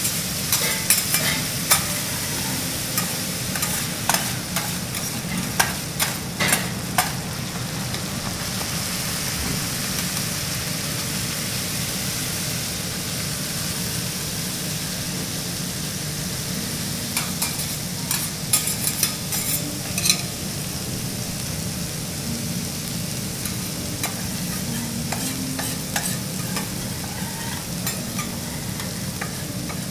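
Chopped garlic sizzling in oil on a steel teppanyaki griddle. Metal spatulas scrape and click on the plate in spells: through the first several seconds, again about halfway through, and briefly near the end.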